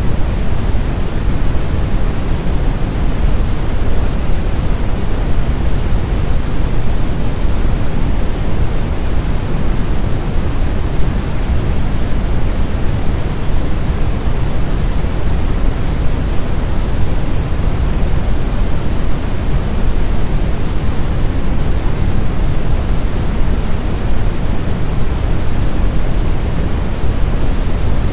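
Synthetic brown noise: a steady, deep rumbling hiss, strongest in the bass and thinning toward the treble, unchanging throughout.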